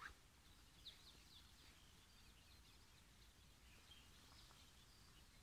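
Near silence: faint outdoor ambience with scattered faint bird chirps and a faint click right at the start.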